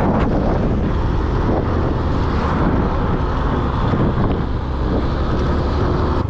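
Wind buffeting the microphone over the steady running noise of a vehicle on the move.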